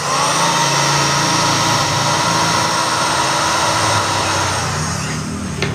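Viaris blender motor base running unloaded with no jar fitted, test-run after a repair for stiff, hard-to-turn spinning. It starts suddenly with a high, steady whine and runs down just before the end.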